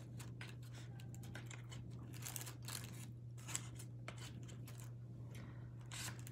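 Faint clicks and rustles of chopsticks and food containers being handled while eating, one click a little louder about three and a half seconds in, over a steady low hum.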